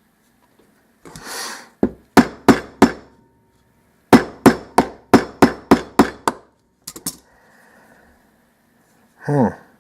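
Metal-on-metal hammering from channel-lock pliers used as a hammer on the lock cylinder, trying to drive out a roll pin that will not budge. About fourteen sharp strikes come in runs of roughly three a second: four, then eight, then two more.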